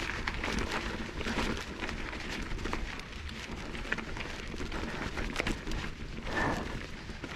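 Footsteps crunching on a dirt trail, with irregular clicks and rattles from a mountain bike being walked uphill.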